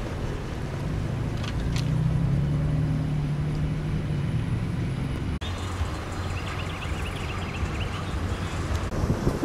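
Motor vehicle engine running with a steady low hum, with wind noise on the microphone. A brief drop-out about five seconds in marks a cut, after which there is a rougher low rumble with faint high chirps.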